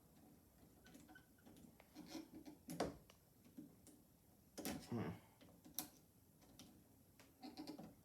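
Quiet, scattered clicks and scrapes of a screwdriver and wires being worked at a wall light-switch box, with a few louder handling knocks near the middle.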